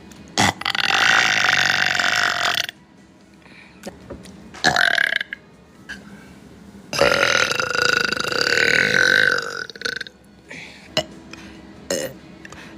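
A girl burping: two long, drawn-out burps, each held on a steady pitch for about two to three seconds, with a short burp between them.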